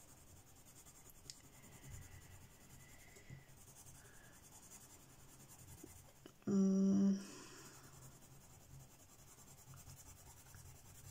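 Derwent Lightfast coloured pencil shading a swatch on paper: a faint, steady scratching of pencil lead on paper. Midway through, a short hum from a person's voice is the loudest sound.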